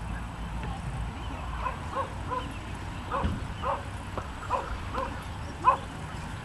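A dog yapping repeatedly in short barks, about two a second, starting about a second and a half in, with one louder bark near the end.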